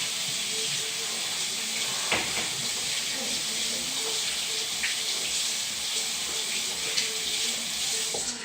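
Tap water running into a sink as hands are washed under it, a steady hiss that is shut off near the end.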